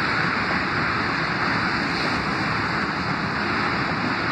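CSX freight train rolling past, a steady rushing noise with no breaks.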